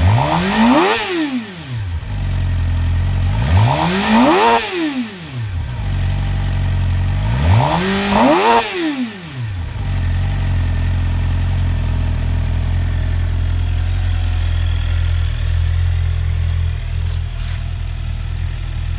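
Suzuki GSX-R750 inline-four engine blipped three times from idle, about four seconds apart, each rev rising and falling quickly, then settling to a steady idle.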